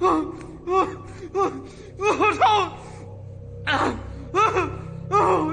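A man laughing breathlessly in short, high-pitched bursts, one or two a second, with a pause of about a second near the middle.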